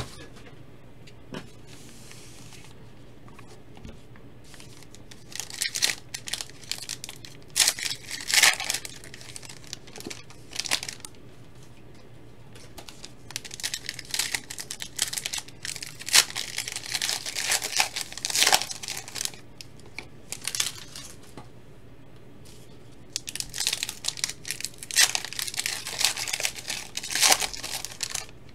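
Foil trading-card pack wrappers being torn open and crinkled by hand, in three bouts of tearing and crumpling with short lulls between.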